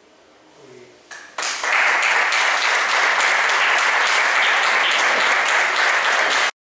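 Audience applauding, a dense steady clapping that starts about a second and a half in and cuts off abruptly near the end.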